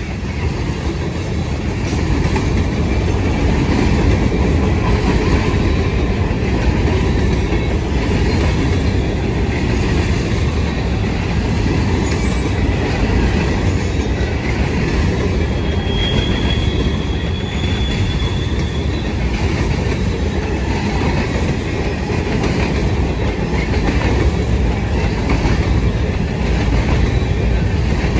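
Freight cars of a long manifest train, mostly covered hoppers and tank cars, rolling past at close range: a steady loud rumble of steel wheels on the rails with clickety-clack over the joints. A brief high-pitched squeal rises above it for a couple of seconds about halfway through.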